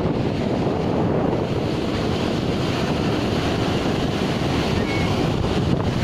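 Rough storm surf breaking and washing onto the beach, heard as a steady rush, with strong wind buffeting the microphone.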